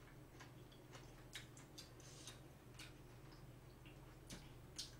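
Faint close-miked eating sounds: irregular small wet clicks and smacks of a mouth chewing spicy steamed seafood, over a low steady hum.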